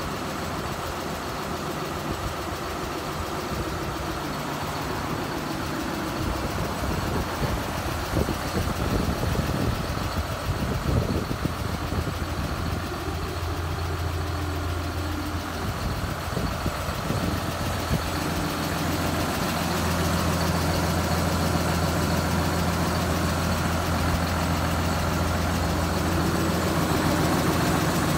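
John Deere 6930 tractor's six-cylinder diesel engine idling steadily, with no revving. Uneven rumbling noise sits over it in the middle, and the engine gets a little louder in the last third.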